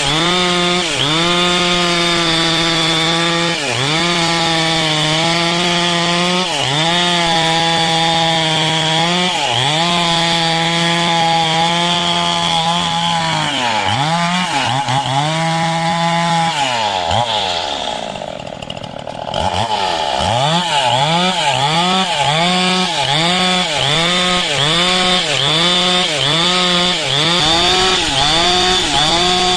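Stihl two-stroke chainsaw cutting coconut-palm wood at full throttle, its engine note sagging briefly every few seconds. About two-thirds of the way through it drops to idle, then revs up and down about once a second.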